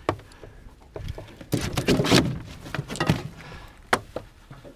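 Handling noises of a striped bass in a landing net on a boat deck: scattered knocks and clicks, with a louder rustling scuffle about a second and a half in.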